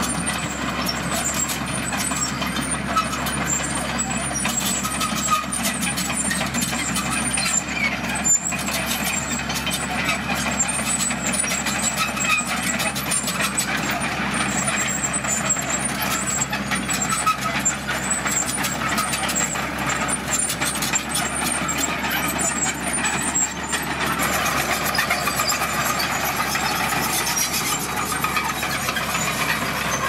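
Komatsu D41P crawler bulldozer working under load while pushing a pile of red gravel: steady diesel engine noise with a constant clatter of steel tracks. The sound turns brighter about three-quarters of the way through.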